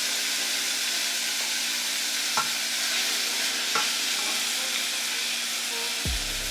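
Ground pork with seasonings sizzling steadily in a frying pan, with two light clicks along the way and a low hum coming in near the end.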